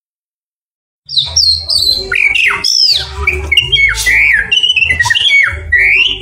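White-rumped shama (murai batu) singing loudly, starting about a second in: a rapid run of whistled phrases that swoop up and down in pitch.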